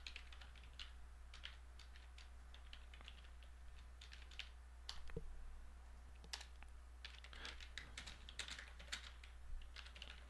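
Typing on a computer keyboard: irregular runs of quick keystroke clicks with a short lull a few seconds in, then a dense flurry near the end. A faint low steady hum lies underneath.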